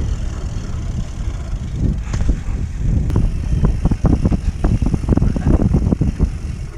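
Wind rumble on the microphone and mountain bike tyres rolling fast over a leaf-covered dirt trail, with a rapid clatter of knocks and rattles from the bike over rough ground in the second half.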